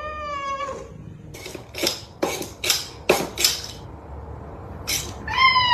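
A domestic cat gives a short meow. About six sharp metallic clinks follow over two seconds, with one more a little later. Then a cat's longer meow falls in pitch.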